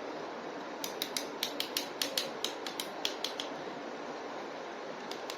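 Handling of a plastic toy: a quick run of sharp clicks, about four or five a second, starting about a second in and stopping after a couple of seconds, over a steady low hiss.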